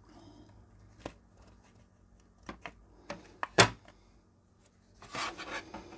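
Hands fitting a replacement ZX81 keyboard membrane into the computer's plastic case: a few light taps and knocks of plastic, the loudest about three and a half seconds in, and a short rustle near the end.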